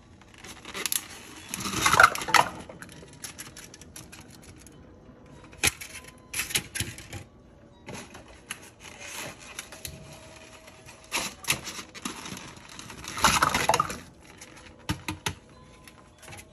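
Plastic package of dry jumbo pasta shells crinkling while the shells are tipped into a stainless steel pot, with scattered sharp clicks as the hard shells knock together and against the pot. There are two louder spells of crinkling, about two seconds in and near the end.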